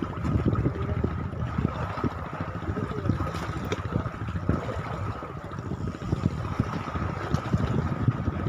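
Storm wind gusting against the microphone in uneven low rumbles, with water sloshing and a faint steady high tone underneath.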